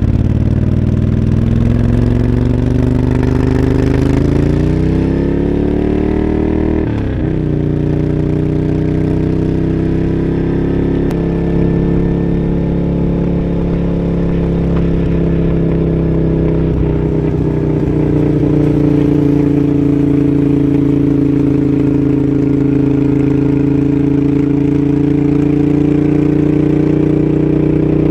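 Moto Guzzi Griso's transverse V-twin engine and exhaust under acceleration. The pitch climbs for about seven seconds, drops suddenly at a gear change, then holds steady at a cruise.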